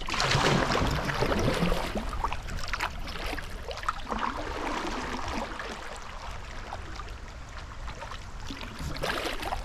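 Water splashing and trickling around a kayak on a river. It is loudest in the first couple of seconds and then eases off.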